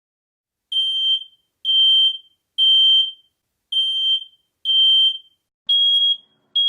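Smoke alarm going off: a loud, high-pitched electronic beep repeating about once a second, seven beeps in all.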